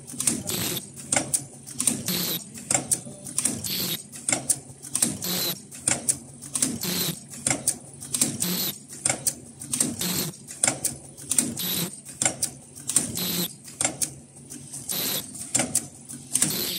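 Automatic flat-mask ear-loop cross welding machine running at speed: a fast, uneven rhythm of clicks, clacks and short air hisses from its pneumatic slides and feed mechanism.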